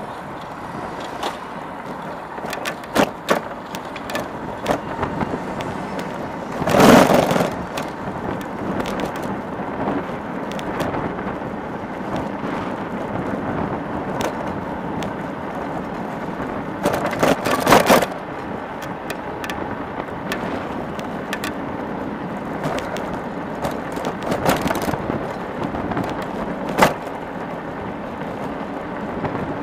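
Road and traffic noise from riding an e-bike through city streets: a steady rolling rush with scattered rattles and clicks. Twice, about a quarter and just over halfway through, a louder rush of noise swells up for about a second.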